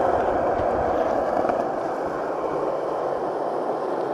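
Skateboard wheels rolling over rough old tennis-court ground, a steady grinding rumble that eases slightly about halfway through.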